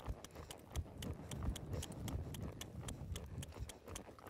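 Hoofbeats of a two-year-old filly loping in circles on a soft dirt arena: a steady run of low thuds with sharp ticks.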